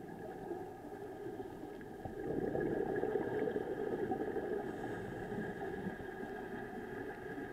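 Underwater noise picked up by a camera in a dive housing: a steady low rush with faint steady hums, swelling louder for a couple of seconds about two seconds in.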